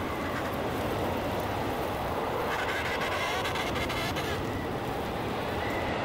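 Steady rushing noise, like a soundtrack wind or ambience bed, swelling up at the start and then holding even, with a faint high tone drifting in about halfway through.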